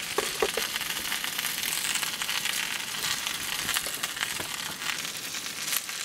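Slices of marbled beef frying on an iron griddle plate: a steady sizzling hiss of rendering fat, dotted with small crackles and pops.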